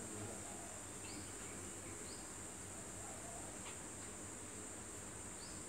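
Outdoor insects keep up a steady, high-pitched trill, with a few short rising bird chirps about one, two and five seconds in.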